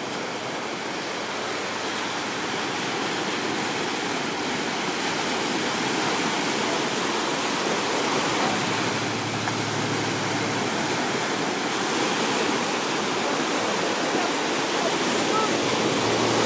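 Steady rush of sea surf, small waves breaking and washing onto the beach.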